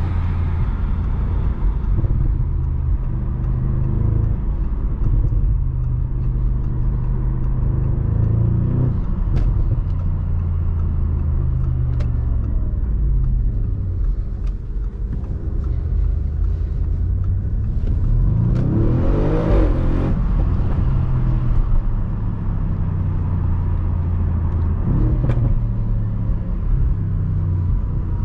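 Audi RS6 Avant's twin-turbo V8 running under way, its note stepping and gliding with the revs, with one sharp rise and fall in revs about two-thirds of the way through. A few short sharp clicks are heard now and then.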